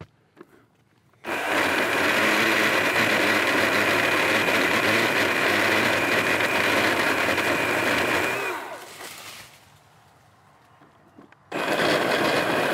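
Makita 18V cordless brushless 10-inch top-handle chainsaw cutting into a tree limb. Its electric motor and chain start suddenly about a second in and run with a steady high whine for about seven seconds, wind down with falling pitch, then start cutting again near the end.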